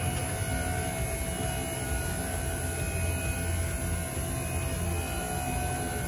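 Boom lift's drive and hydraulics running with a steady, even hum as the basket is lowered.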